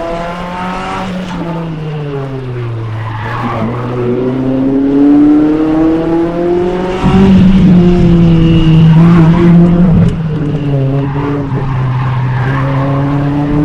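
Renault Clio RS 197's 2.0-litre four-cylinder engine being driven hard: the revs drop over the first few seconds, then climb steadily, with a sudden jump in loudness about seven seconds in as the throttle opens. It eases back around ten seconds in and picks up again near the end.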